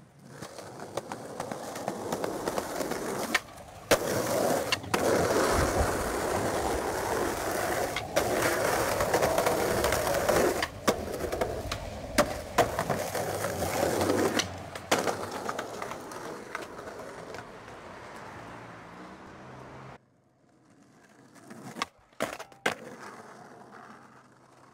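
Skateboard wheels rolling over rough pavement, a long steady rumble broken by several sharp clacks of the board popping and landing. After a cut, a few more quick board clacks.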